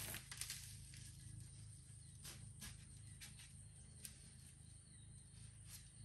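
Faint handling sounds as a spice-rubbed brisket flat is lifted and flipped on a metal baking sheet: a few soft taps and rustles over a low steady hum.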